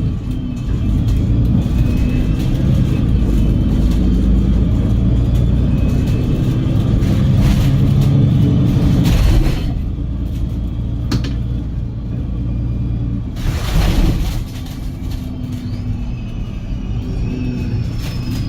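Cummins L9E diesel engine and Voith DIWA automatic gearbox of a double-decker bus, heard from inside, pulling under load with the engine note slowly rising, then easing off about halfway through. A short rushing burst of noise comes a few seconds later.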